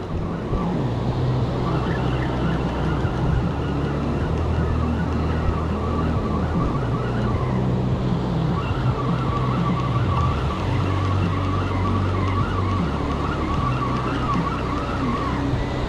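Spinning reel being cranked to bring in a hooked fish, its gears giving a steady whir that shifts pitch as the cranking speed changes.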